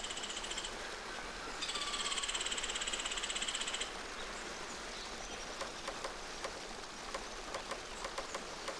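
Forest ambience: a rapid, high buzzing trill sounds twice, the second time for about two seconds, then light scattered ticks over a faint steady background.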